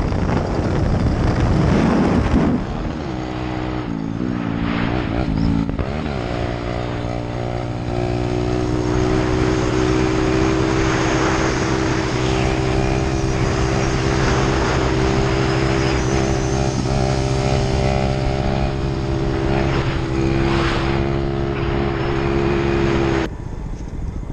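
Vehicle engine running with a rushing noise. Its pitch shifts for a few seconds, then holds steady at constant throttle, and it cuts off sharply near the end.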